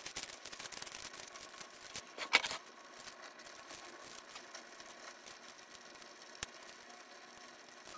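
A sheet of paper rustling and crinkling as it is folded, with one louder crinkle about two seconds in, then a single sharp snip of kitchen scissors cutting it, about six seconds in.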